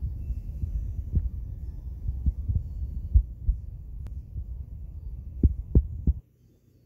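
A low rumble with soft thumps, a few stronger ones near the end, that cuts off suddenly about six seconds in.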